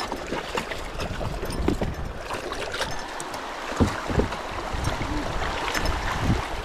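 Water splashing and sloshing around a kayak as it moves on the river, with a few sharp knocks: two close together past the middle and one near the end.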